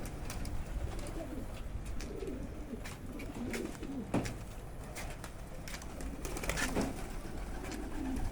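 Pigeon cooing in low, rolling phrases, over and over, with a few sharp clicks scattered through.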